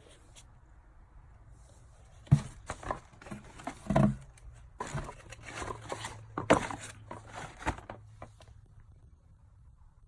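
Handling noise from sneakers and their packaging: a scattered run of short rustles and light knocks, loudest at about two, four and six and a half seconds in, then dying away.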